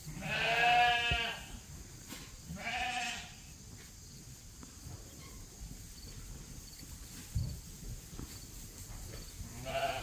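Sheep bleating: a loud, wavering bleat about a second long at the start, a shorter bleat about two seconds later, and another starting near the end.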